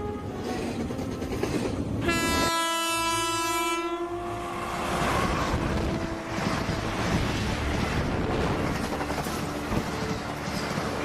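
A train horn sounds once for about two seconds, then the noise of a passing train runs on.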